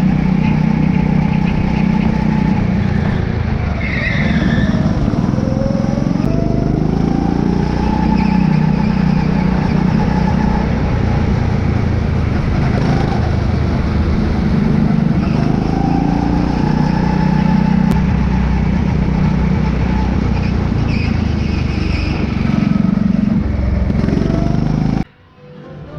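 Go-kart running at speed around a track, its engine note rising and falling with the throttle through the corners. It cuts off suddenly near the end.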